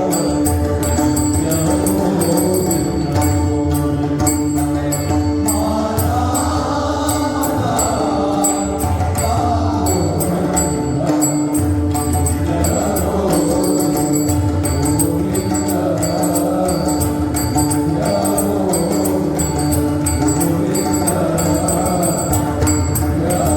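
Marathi abhang bhajan music: pakhawaj and tabla drumming with small hand cymbals clicking the beat over a steady drone, and a bending melody, sung in chant style, coming in about six seconds in.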